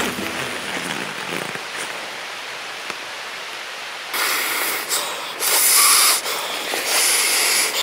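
An inflatable sleeping pad being blown up by mouth: three long breaths into its valve, each about a second long, starting about four seconds in after a steady soft hiss.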